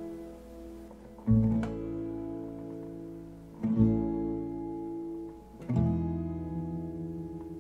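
Background music: acoustic guitar strumming slow chords, three strums each left to ring and fade.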